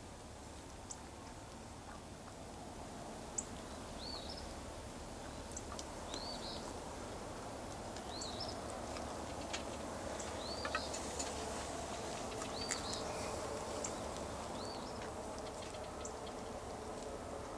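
A bird repeating a short call that rises and falls, about once every two seconds, over a steady outdoor background hiss with scattered faint clicks.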